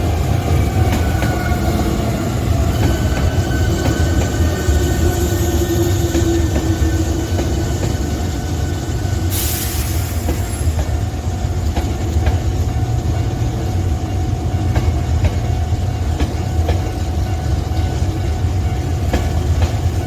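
Hankyu electric train rumbling on the rails, with clicks over the rail joints and some wheel squeal in the first few seconds. A short hiss comes about halfway through.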